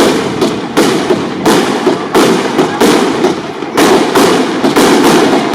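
Fireworks going off nonstop: loud, sharp firecracker cracks, several a second, over a continuous hiss of burning pyrotechnics.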